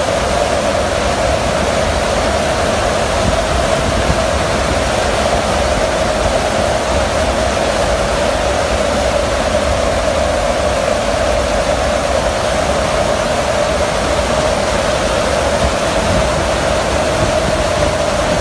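Steady, loud wind and engine noise inside a transport aircraft in flight with its rear cargo ramp open, with a constant drone running through it.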